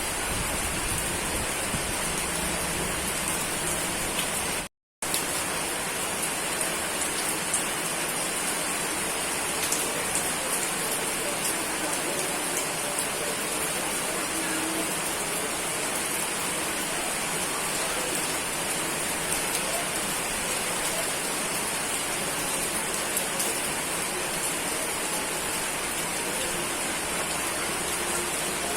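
Steady rain falling and pattering on surfaces, an even hiss flecked with individual drop ticks. The sound cuts out completely for a fraction of a second just under five seconds in, then resumes unchanged.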